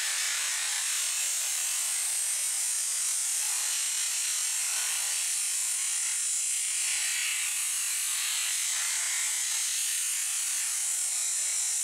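Pressure washer jet spraying in a steady high hiss, the water blasting against raw fish and a wooden board.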